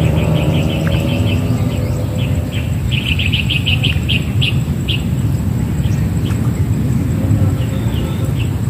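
A bird calling in quick runs of short, high chirps: one run at the start, a faster one about three seconds in, and a few notes near the end. Under it is a steady low rumble.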